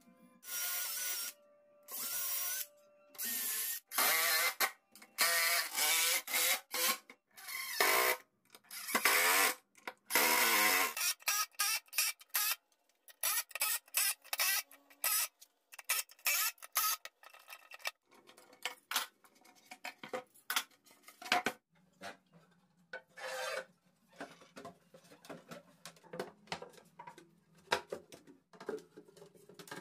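Workshop tool work: a run of short, harsh scraping bursts, each under a second, giving way about twelve seconds in to lighter, scattered clicks and taps.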